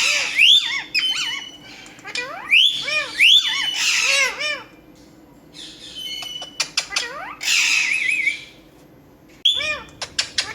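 Pet parrot squawking: clusters of loud, harsh calls that each rise and fall in pitch, with a short run of clicks about two-thirds of the way through.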